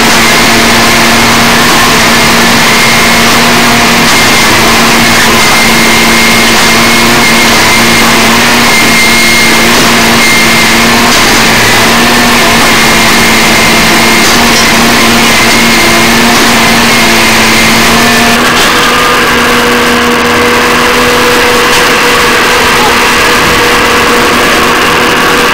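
Engine and hydraulics of a rail-mounted railroad tie-replacement machine running steadily, with a steady hum and a higher whine. The running note changes about three quarters of the way through.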